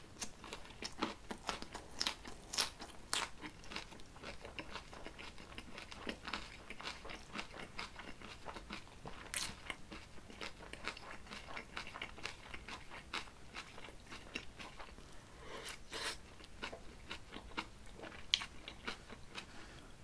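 A person chewing a mouthful of food up close: crunchy bites and wet mouth sounds in a dense run of short clicks, with metal chopsticks knocking the earthenware stew pot now and then.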